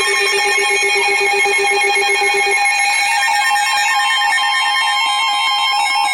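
Several NOAA weather radios sounding their alert alarms together for a severe thunderstorm warning. A steady high tone, the roughly 1 kHz weather-radio warning alarm, sounds along with the faster beeping and warbling alarms of other receivers. A lower pulsing beep stops about two and a half seconds in.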